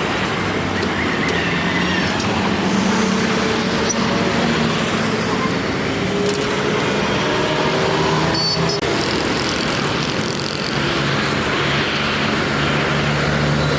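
Steady traffic noise: vehicle engines running, with a low hum that drifts slowly in pitch.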